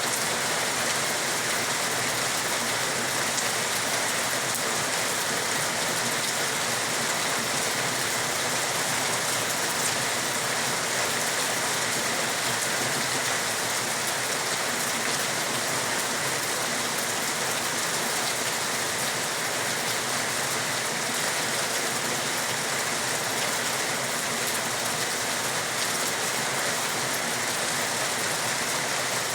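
Steady heavy rain falling on a surface, an even hiss without pause or change.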